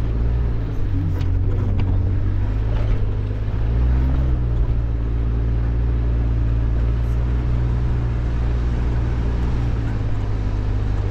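Off-road vehicle engine running steadily at low speed, with a brief rise and fall in engine pitch about four seconds in.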